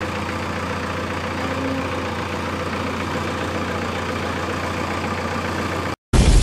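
Ingersoll-Rand road roller's diesel engine running steadily. It cuts off just before the end and a loud, sudden crash-like sound breaks in.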